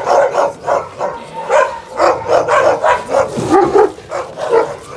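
Alabai (Central Asian Shepherd Dog) barking at a wolf through a fence, a quick run of loud barks, two to three a second.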